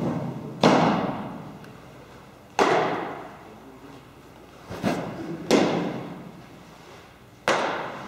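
Baseballs smacking into catchers' gloves in a large indoor training hall: a run of sharp pops about every two seconds, each echoing off the walls.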